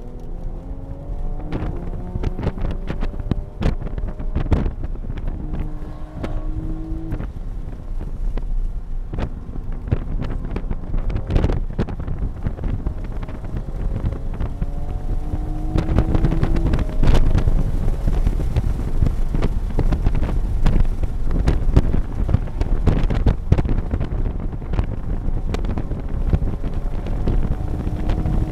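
Toyota GR Supra (A90) engine heard from inside the cabin, pulling under near-full throttle with its pitch climbing through the revs and one upshift in the first half. Wind rush and many short sharp knocks run over it, and it gets louder about halfway through.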